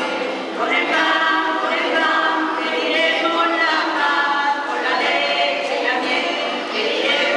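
Small women's choir singing a Spanish Christmas carol (villancico) together, several voices in close unison.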